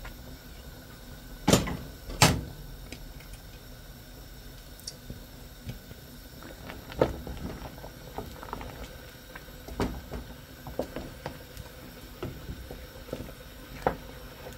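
Kitchen utensils knocking against a stainless steel cooking pot: two sharp clanks about one and a half and two seconds in, then scattered lighter knocks as a wooden spoon stirs the steaming soup.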